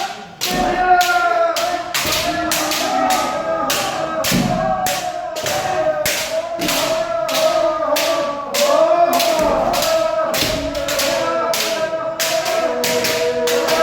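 Bamboo shinai striking kendo armour again and again, sharp cracks about twice a second, over many players' drawn-out kiai shouts.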